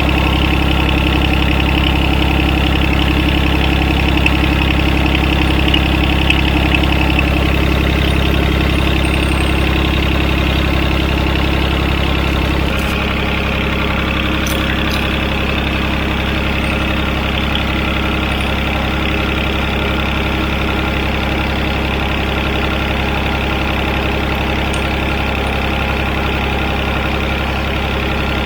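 John Deere tractor's three-cylinder Yanmar diesel engine idling steadily. About twelve seconds in, its note changes and gets slightly quieter.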